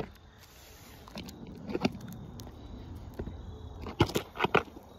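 A few soft taps and clicks of something knocking against the phone, with the loudest cluster near the end, over a low background hiss.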